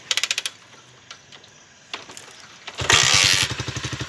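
Honda CG single-cylinder motorcycle engine breathing through a Roncar ML Competition aftermarket exhaust: a short rapid clatter near the start, then about three seconds in the engine fires with a loud burst and settles into an even, steady exhaust beat at idle.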